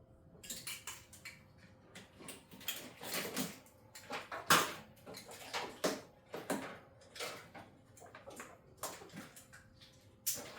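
Irregular clicks, clanks and rattles of tools and parts being handled during work on a car, with the loudest knock about four and a half seconds in.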